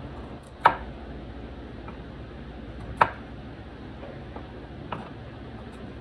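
Kitchen knife cutting raw potato into cubes on a wooden cutting board: a few sharp knocks as the blade goes through and strikes the board, two loud ones a couple of seconds apart and a weaker one near the end.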